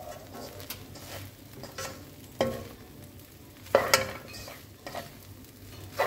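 Spatula stirring and tossing fried rice in a non-stick wok, knocking and scraping against the pan several times over a sizzle of frying food. The loudest knocks come in a quick pair about four seconds in.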